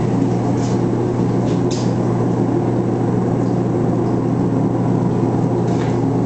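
A machine running with a steady low hum, even in level throughout, with two brief faint hisses in the first two seconds.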